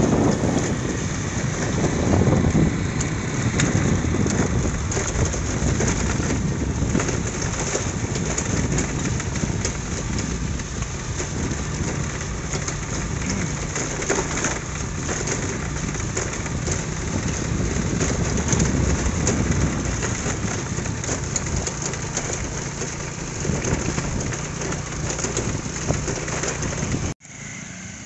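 Wind rushing over a phone microphone while riding a motorbike along a dirt track, a steady rushing noise over the engine's low running; it cuts off suddenly near the end.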